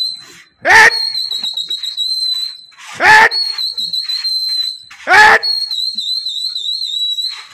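Three loud, short shouts with a falling pitch, about two seconds apart: a pigeon flier calling to his flock. Under them runs a steady, wavering high whistle.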